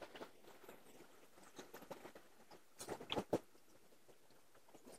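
A knife slicing a fresh banana flower: a few faint crisp cuts, clustered about three seconds in, over a quiet background.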